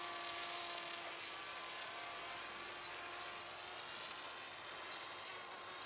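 Radio-controlled model plane's motor and propeller droning in flight, its hum fading away over the first second or two as the plane flies off. A few short high chirps sound now and then over a steady outdoor hiss.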